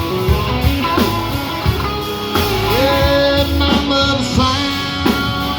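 Live rock band playing a rock and roll song, with guitar to the fore over bass and drums; a little past halfway a pitched line slides up and holds a note.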